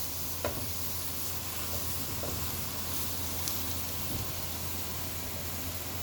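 Sliced onions sizzling steadily in hot oil in a pan over high heat, with a few light clicks of stirring.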